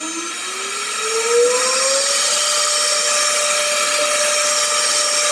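CNC router spindle starting up and cutting into an 18 mm board: a whine that rises in pitch for about two seconds and then holds steady, over a loud, steady rushing noise.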